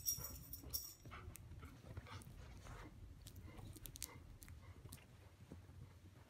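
Puppies mouthing and tugging at a plush toy: faint chewing and rustling with many small scratchy clicks, louder and crackly for about the first second.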